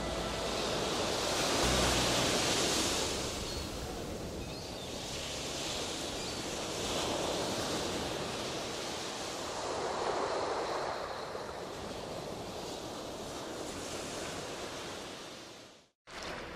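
Sea surf: waves washing in and drawing back in slow swells, fading out shortly before the end.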